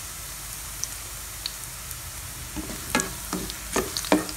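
Minced garlic and onion sizzling in hot oil in a frying pan. From about two and a half seconds in come repeated knocks and scrapes of a spatula stirring them against the pan.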